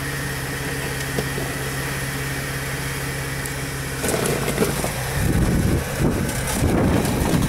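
Jeep TJ rock crawler's engine idling steadily under load, then revving up hard about four seconds in as the Jeep climbs a steep rock ledge, running louder and rougher in uneven surges.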